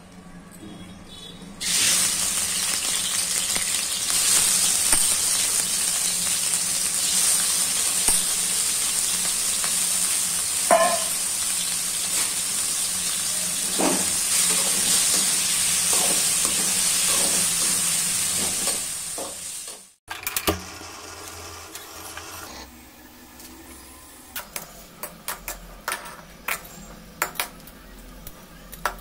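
Raw prawns frying in hot oil in a wok. A loud, steady sizzle starts suddenly about two seconds in as they hit the oil, with a few clicks of the slotted spatula. Near the end the frying is quieter, with frequent sharp taps and scrapes of the spatula against the pan as the prawns are stirred.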